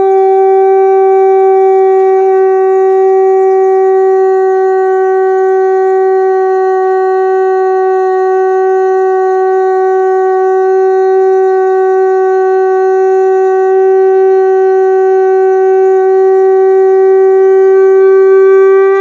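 A conch shell (shankha) blown in one long, loud note held steady in pitch, cutting off abruptly near the end.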